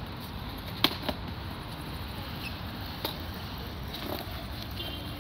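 Skateboard wheels rolling over smooth concrete, a steady low rumble, with a few short sharp clacks about a second in and again about three seconds in.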